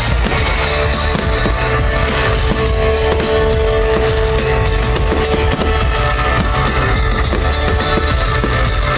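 Loud rock music with a drum kit and guitar, played over a fireworks display's sound system.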